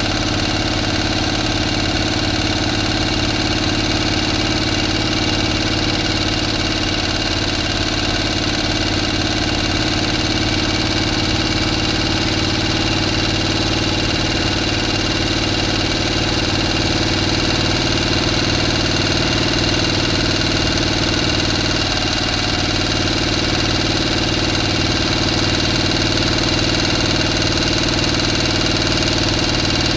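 A motor running at a steady speed, giving an even hum made of several steady tones.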